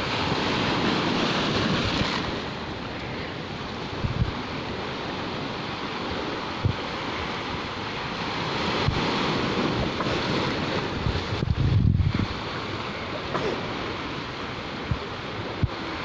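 Small sea waves breaking and washing up a concrete slope and among rocks, a continuous surf wash that swells and eases. Wind buffets the microphone in short low gusts, strongest about three-quarters of the way through.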